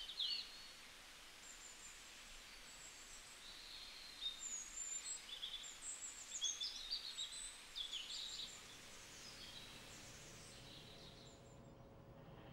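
Small birds chirping: a scattered run of short, high chirps and twitters over a faint hiss, dying away about two-thirds of the way through.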